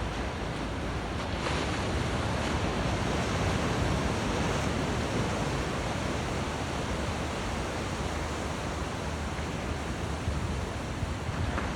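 Ocean surf breaking and washing up the beach, a steady wash of noise that swells a little a few seconds in, with some wind on the microphone.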